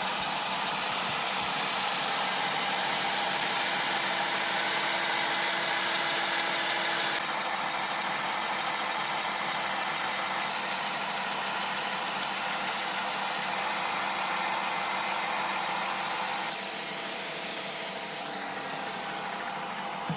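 High-speed wood router, serving as a tool post grinder, running loudly while its stone grinds the jaws of a turning lathe chuck: a steady whine with grinding noise. About three-quarters of the way through, the sound drops a little and loses some of its upper hiss.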